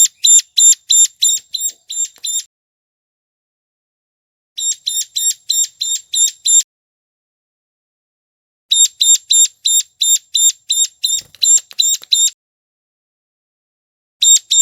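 Ciblek gunung (a prinia) calling: rapid, high, repeated chips of about five a second, given in phrases of two to three seconds with pauses of about two seconds between them. It is a lure recording for attracting wild birds.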